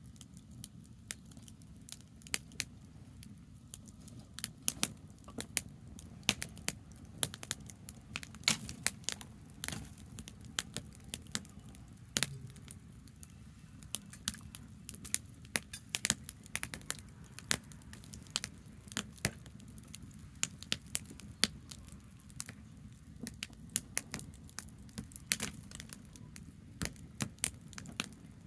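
Branch campfire crackling, with frequent irregular sharp pops and snaps over a steady low rumble.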